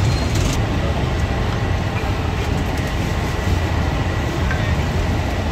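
Steady low rumble and hiss of a busy roadside street market, with a brief clink about half a second in.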